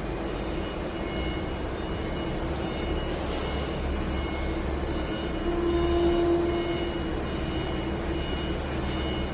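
Steady hum of running industrial machinery with a low rumble. A mid-pitched tone swells briefly about six seconds in, and faint high whines come and go.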